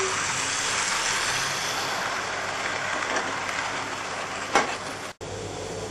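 Model train running past on the layout track: a steady rush of wheels on rail and running noise as the coaches pass close by, with one sharp click about four and a half seconds in and the sound cutting out for an instant just after.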